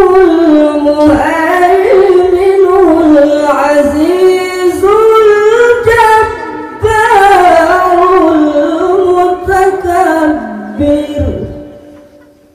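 Melodic Qur'an recitation (tilawah) by a male qari, sung into a handheld microphone: a single high, ornamented vocal line held in long sustained phrases. There is a short breath about seven seconds in, and near the end the phrase closes on a falling low note and fades out.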